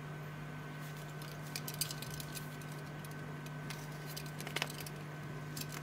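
Faint scattered clicks and rustles of a leather watch strap and its metal buckle being handled and fastened around a wrist, over a steady low hum.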